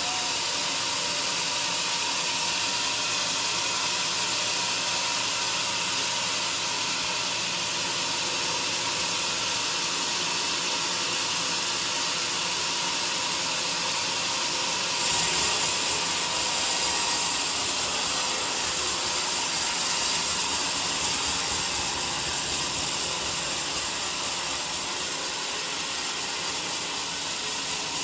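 Band sawmill blade sawing lengthwise through a large joar log, a steady hissing cut with the machine running underneath. About halfway through it suddenly gets louder and brighter.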